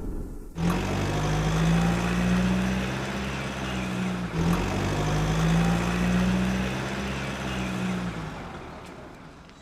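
Truck engine running with a steady droning hum. It starts about half a second in, breaks off briefly around the middle, then resumes and fades out near the end.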